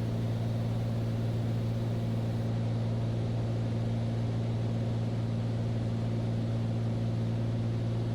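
Steady drone of a Beechcraft Bonanza's piston engine and propeller in level cruise, a constant low hum that holds the same pitch throughout.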